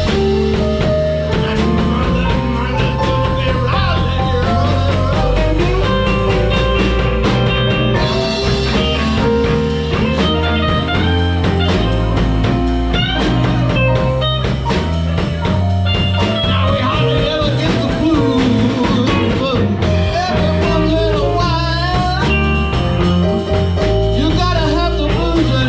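Live blues band playing: electric guitar lines with bent notes over bass and drums, loud and steady throughout.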